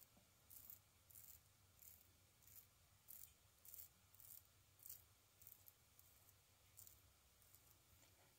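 Double-edge safety razor scraping through a day's stubble on lathered skin: about a dozen short, faint strokes, roughly one and a half a second.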